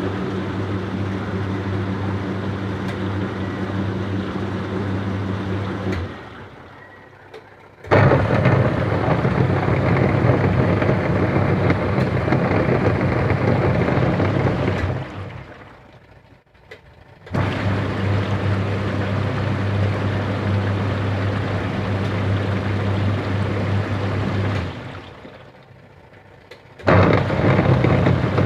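Top-loading washing machine motor driving a worn gearbox, agitating in spells of about seven seconds with short pauses between them. Some spells carry a steady hum and others a rough, harsh grinding: the sound of the worn gearbox.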